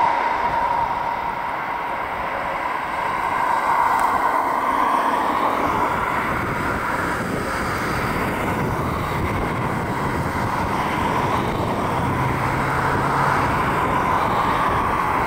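Jet engines of an Airbus A320-family airliner landing, a steady rush of engine noise with a thin whine in it at first. The noise swells a few seconds in as the jet touches down and rolls out along the runway.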